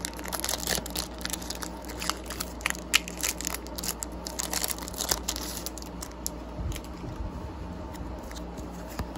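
Foil wrapper of a Pokémon Fusion Strike booster pack crinkling as it is torn open by hand: a run of sharp crackles that thin out after about six seconds.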